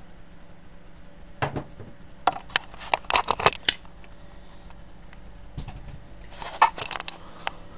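Clicks, taps and clatter of a lithium-ion battery's plastic cell holder and loose parts being handled on a workbench: a single knock about a second and a half in, a quick run of sharp clicks from about two to three and a half seconds, and another cluster near the end.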